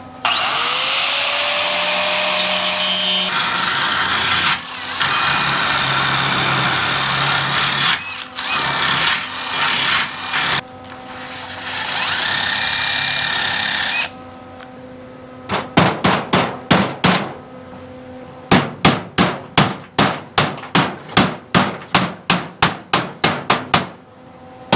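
Angle grinder with a thick cutoff disc spinning up and grinding down fresh welds on a steel patch panel, in several long passes with short breaks. After that comes a long run of sharp hammer strikes on the sheet-steel edge of the panel, about three a second.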